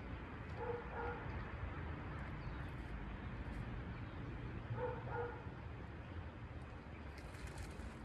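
A dog whimpering in two brief double sounds about four seconds apart, over a steady low background rumble.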